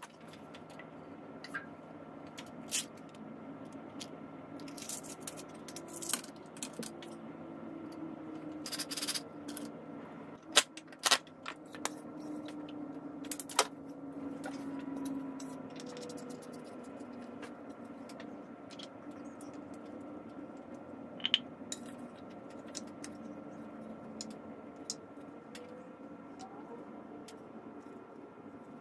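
Scattered clicks, knocks and light scrapes of small hardware being handled: a cordless drill, a black iron floor flange on a plywood board and a white PVC elbow, with a few sharper knocks in the middle, over a steady low hum.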